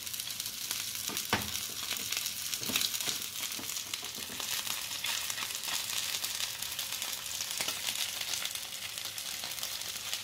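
Whole perch frying in oil in a nonstick pan over medium-high heat: a steady sizzling hiss with scattered crackles and a few louder pops as the skin browns.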